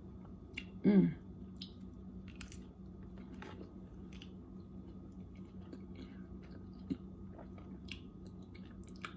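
A person chewing food close to the microphone, with small wet mouth clicks and a short hummed "mm" about a second in, over a steady low hum.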